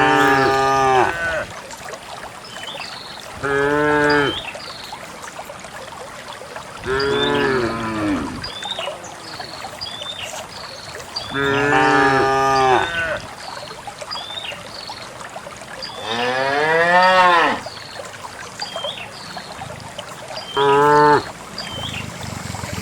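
Cows mooing one after another: six long calls a few seconds apart, one near the end of the run rising and then falling in pitch.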